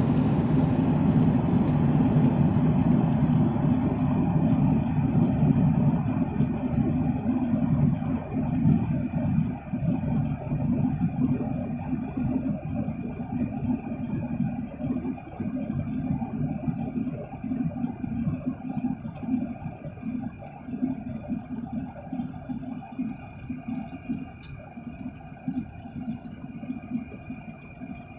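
Steady engine and airflow noise inside the cabin of a Boeing 737 MAX 8 airliner in flight: a dense low rumble with a faint steady high tone above it, gradually getting quieter through the second half.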